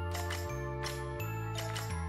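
Background music: a light instrumental track with bell-like chimes over a bass line that moves to a new note about every half second, with a steady beat.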